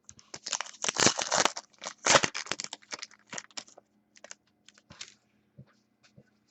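Trading cards and plastic being handled, crinkling and clicking. It is densest in the first two and a half seconds, then thins to scattered clicks.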